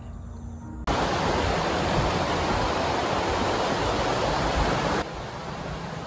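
A steady, even rushing noise comes in suddenly about a second in and drops to a softer hiss about five seconds in.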